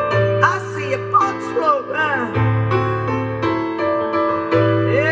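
Recorded music playing through a pair of vintage Magnavox loudspeakers: an instrumental stretch of a slow piano ballad, with sustained piano chords over a steady bass and a lead line that bends and slides in pitch.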